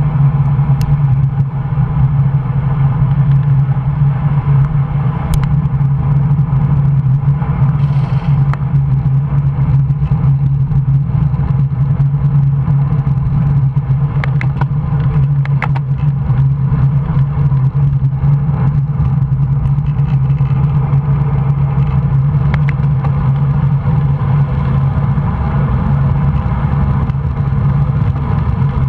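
Steady low rumble of wind buffeting and road vibration picked up by a handlebar-mounted camera on a road bike riding fast downhill. A few sharp clicks come about halfway through.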